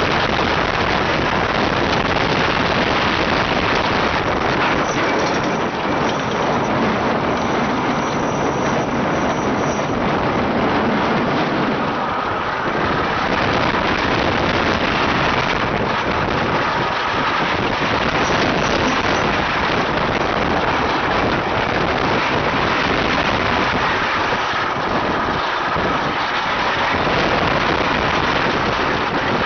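Rolling Thunder wooden roller coaster train running along its track at speed: a loud, steady rattling of the wheels on the wooden track, with wind rushing past the microphone.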